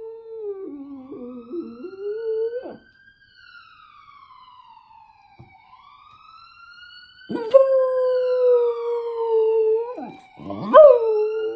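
A small Cairn Terrier–Schnauzer mix dog howling: a howl in the first few seconds, then two more starting about seven and ten and a half seconds in, each a long held note. Between them a fainter tone rises and falls slowly from a played recording that he is howling along to.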